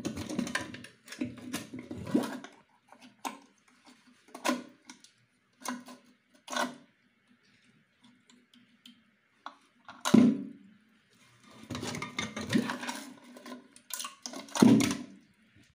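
Plastic parts of a toilet cistern's fill valve being handled and fitted: scattered clicks, knocks and scrapes as the float arm is clipped onto the valve head, with one sharp click about two-thirds of the way through the loudest.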